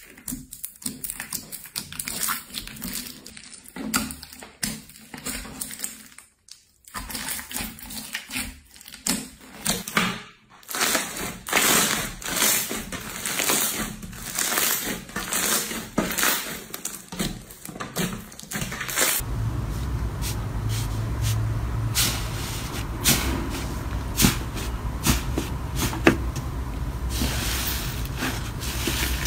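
Slime being played with, giving many quick crackling clicks and pops. About nineteen seconds in it cuts to another slime clip with a steady low hum under softer crackles and squishes.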